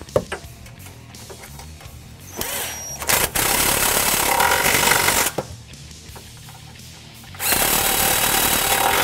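Cordless impact wrench running the exhaust hanger bolts tight, in two runs of about two seconds each, the second near the end, over background music.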